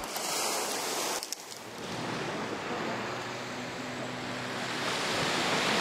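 Small waves breaking and washing over a shingle beach, a steady hiss, with a faint low hum underneath in the middle seconds.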